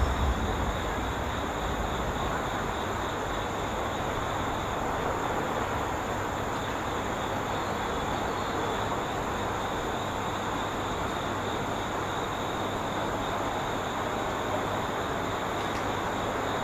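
A train's low rumble dies away in the first moment, leaving a steady, even hiss with faint high steady tones above it.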